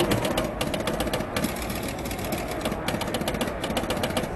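Relays, stepper units and score reels of a 1971 Gottlieb Rollercoaster electromechanical pinball machine clattering in a rapid, uneven run of clicks as the machine resets for a new game. The clicking stops near the end.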